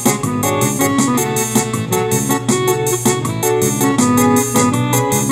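Instrumental introduction of a gospel song: keyboard chords over a steady, regular beat, with no singing yet.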